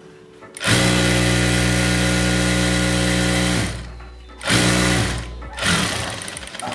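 Motor-driven sewing machine stitching in spurts: one steady run of about three seconds beginning a second in, then a shorter run and a brief burst.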